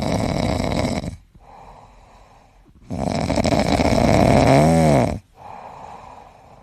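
A dog snoring: two loud, rasping snores about two seconds each, with quieter breaths between them. The second snore ends in a brief whistling tone that rises and falls.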